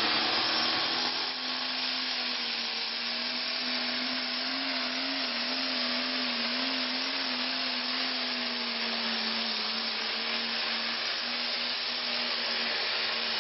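Turbocharged diesel pulling tractor running flat out under full load as it drags a weight-transfer sled: a steady loud drone with a dense hissing rush over it, its pitch wavering slightly midway.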